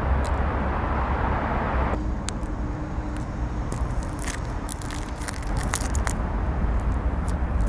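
Low, steady street-ambience rumble. About two seconds in the haze cuts off abruptly, and a canvas sneaker grinds out a cigarette butt on gritty pavement: a run of small crackling scrapes and clicks.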